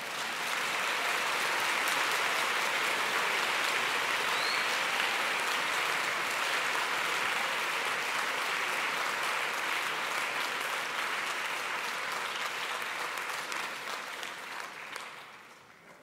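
Audience applauding, swelling over the first couple of seconds, holding steady, then tapering off over the last few seconds.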